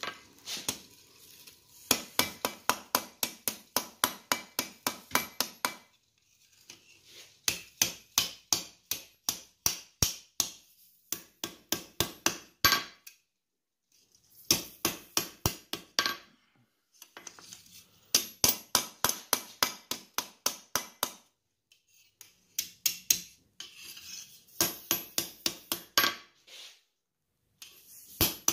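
Hand hammer striking hot steel on an anvil, rolling the hinge barrel of a forged skillet handle around a quarter-inch drift. The blows come in quick volleys of about four strikes a second, with short pauses between them.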